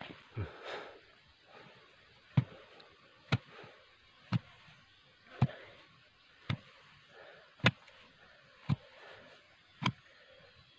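A thick bamboo pole rammed down into a burrow in packed earth, landing with sharp thuds about once a second, eight times from about two seconds in.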